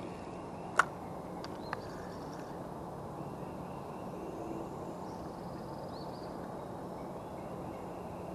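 A spinning reel's bail snapping shut after a cast: one sharp click about a second in, then a softer click. Faint high chirps sound over a steady outdoor background.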